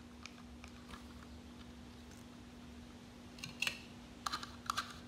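Metal spoon clicking and scraping against a plastic yogurt cup as yogurt is scooped out onto a plate: a few faint clicks, then a quicker run of sharper clicks from about three seconds in, over a faint steady hum.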